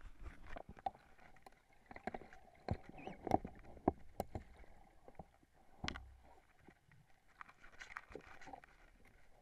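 Muffled underwater handling noise from a camera housing: irregular clicks and knocks as the camera and spearfishing gear move through the water, loudest a few seconds in and again about six seconds in.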